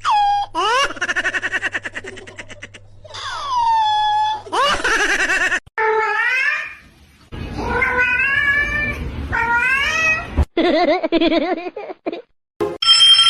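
Cats meowing in a string of short clips, one pitched call after another, with abrupt cuts between them.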